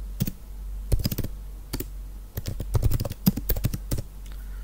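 Computer keyboard being typed on: sharp key clicks in irregular runs and clusters, with short pauses between words.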